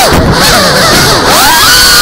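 FPV quadcopter's brushless motors whining loudly, with rushing prop noise. The pitch is low and wavering as the throttle is cut during a roll, then rises again about one and a half seconds in as the throttle comes back up.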